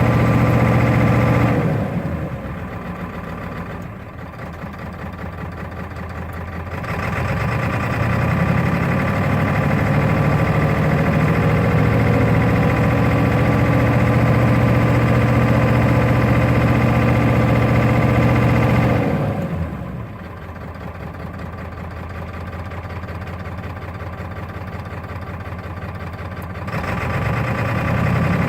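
A 1996 Ford F350's 7.3L Power Stroke turbo-diesel V8 idling rough. Its sound is louder at the start, drops off, comes back louder about seven seconds in, and falls quieter again near twenty seconds.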